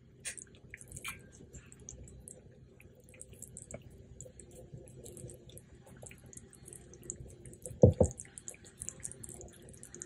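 Garlic butter sauce simmering in a pan with faint, scattered crackles and pops, stirred with a silicone spatula at first. Two loud knocks come close together about eight seconds in.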